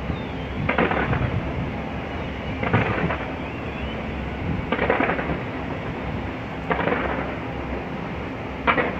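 A fireworks display going off in repeated volleys about every two seconds, each volley a short cluster of crackling bangs over a steady rumble of background noise.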